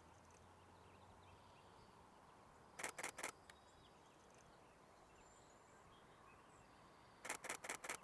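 Camera shutter of a Nikon Z6 II firing in continuous bursts: about four rapid clicks three seconds in, then a longer burst of about eight clicks near the end, against near silence.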